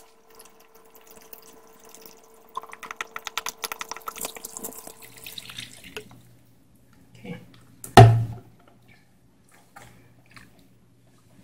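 Fish sauce glugging out of an upturned plastic bottle into a bowl of thick sauce base, a quick run of glugs lasting about three seconds. About eight seconds in comes a single loud thump, followed by faint wet squishing of a gloved hand working the mixture.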